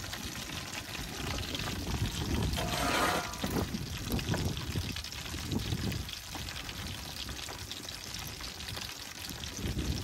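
Small whole fish deep frying in a pan of hot oil, the oil bubbling and crackling steadily, with a low rumble underneath.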